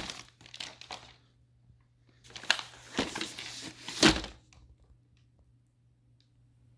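Plastic packaging being handled and unwrapped: rustling that fades in the first second, then a run of sharp crackles about two to four seconds in, ending in a louder crackle with a dull thump.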